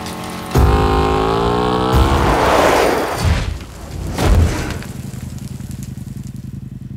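V-twin flat-track motorcycle accelerating hard and passing close by, its engine note rising for about a second and a half before a rushing whoosh as it goes past. About four seconds in there is a heavy thump, followed by a low steady rumble.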